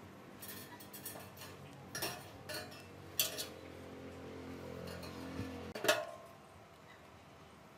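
A steel rod clinking and scraping against a steel chain-link mesh pot: a run of light metallic clinks, with the sharpest about three seconds in and another just before six seconds.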